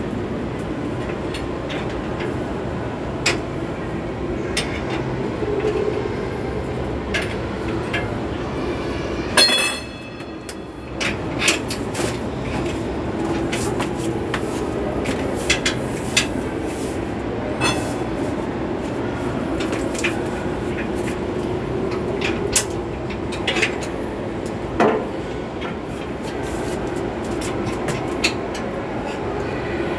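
Metal tools clinking and knocking on the underside of a vehicle every few seconds during gearbox removal, with one sharp ringing metallic clang about nine and a half seconds in. Under it runs a steady mechanical rumble.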